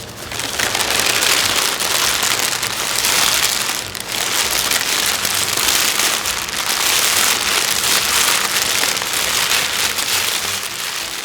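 Dense, steady crackling patter like heavy rain, with a brief dip about four seconds in and fading a little near the end.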